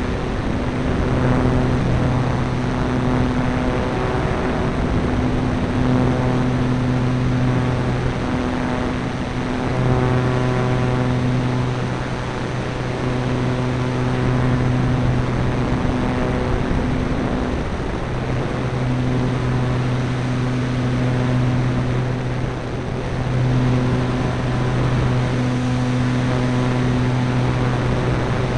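Onboard audio of a Parkzone Radian motor glider in flight. Air rushes over the microphone, and the electric motor and propeller give a steady, even-pitched hum that drops out and comes back several times.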